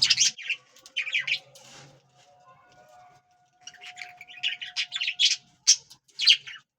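A pair of budgerigars chattering with quick high chirps and scratchy squawks in clusters, breaking off for a second or two in the middle before the chatter picks up again.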